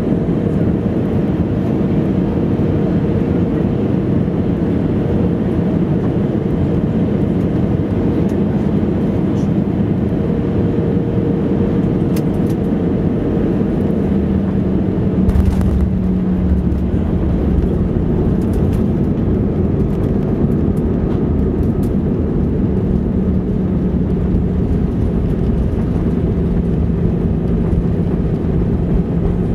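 Jet engine and airflow noise heard inside an Airbus A320 cabin on final approach. About halfway through comes the thump and rumble of touchdown, and then the steady rumble of the landing roll, with the engine's thrust reverser deployed.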